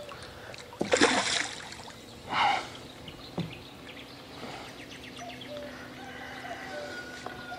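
A hooked grass carp splashing at the water's surface as it is played on a feeder rod: a splash about a second in and another near two and a half seconds, then lighter water sounds.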